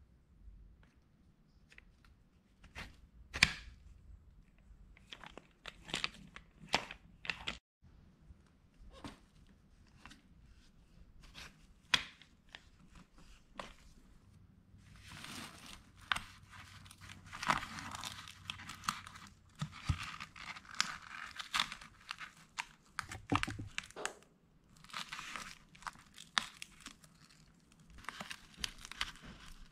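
Pet stroller being assembled by hand: scattered clicks and knocks as the plastic wheels and metal frame parts are handled and fitted. From about halfway on comes a run of ripping sounds as hook-and-loop straps are pulled apart and fastened around the frame tubes.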